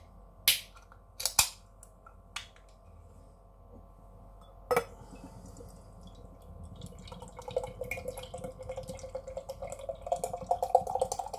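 Aluminium beer can cracked open by its ring-pull, a few sharp clicks within the first second and a half, then a single knock about five seconds in. From about seven seconds a thick imperial stout is poured from the can into a glass, glugging and splashing, the pitch creeping up as the glass fills.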